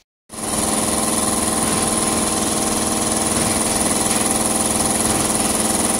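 Remeza belt-driven air compressor running, its electric motor driving a new LB40 piston pump: a loud, steady fast clatter with a high whine on top. It cuts in abruptly just after the start.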